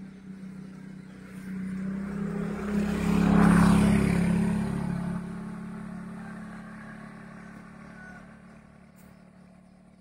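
A motor vehicle driving past close by: its engine hum and tyre noise build up, are loudest about three and a half seconds in, then fade away over the next five seconds or so.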